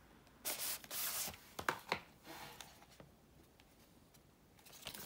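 Cardboard disc packaging being handled: a papery rustle and slide lasting under a second about half a second in, followed by a couple of light clicks, then faint handling and one more click near the end.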